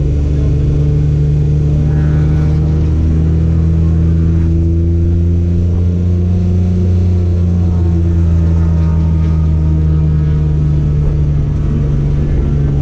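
Race car engine pulling under sustained load at steady high revs, its pitch creeping slightly upward.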